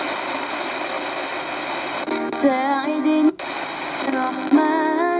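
Souness SNI-F100 portable radio tuned across the FM band: static hiss from its small speaker, then a station with a singing voice comes in about two seconds in, cuts out suddenly a second later, and comes back near the end as the dial moves.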